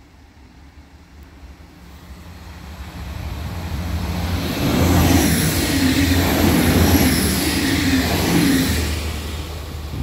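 Passenger train passing close by at a level crossing: the rumble of wheels on rails builds from about two seconds in, is loudest from about five to nine seconds with a steady low hum and a high whine on top, and falls away near the end.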